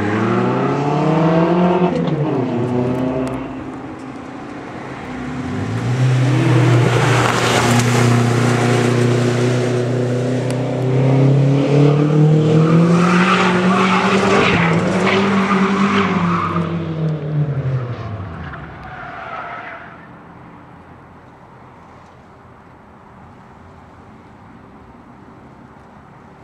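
A drifting car's engine revving up and down in repeated sweeps, with tyres squealing and skidding through the slides. Near the end it falls away to a faint, steady engine hum.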